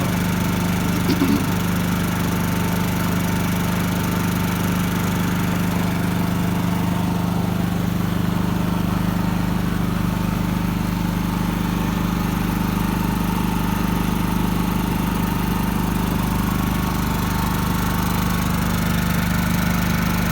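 Brand-new Pulsar 4,000-watt inverter generator running steadily at full speed with eco mode off, on its first run: an even engine hum that holds one pitch and level throughout.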